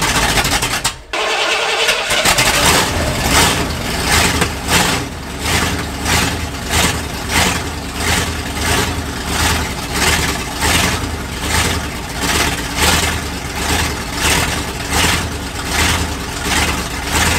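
Bullnose Ford pickup's engine cold-starting through open straight-pipe dual exhaust. It cuts out for a moment about a second in, then runs loud with a regular pulse about every two-thirds of a second.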